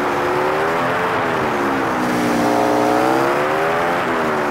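Motorcycle engine running under way with wind noise, its pitch falling, then rising to a high point about halfway through and dropping again as the revs change through the curves.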